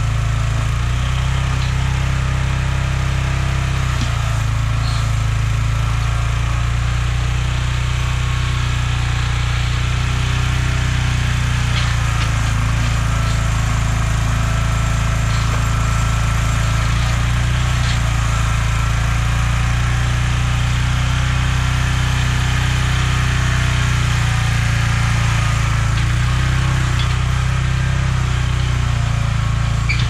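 Small engine of a towable backhoe running steadily with an even low hum while the backhoe digs.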